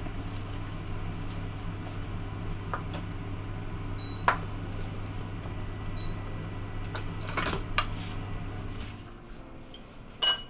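Wooden spatula stirring foaming syrup and knocking against a stainless steel saucepan, with scattered scrapes and knocks over a steady low hum that stops about nine seconds in. Near the end there is one loud clank of the pot.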